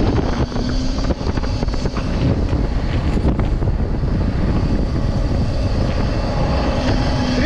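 Mercedes-Benz Sprinter 6x6 van ploughing through deep snow: the engine runs steadily under load, with the rush of snow thrown off the tyres and wind buffeting the microphone.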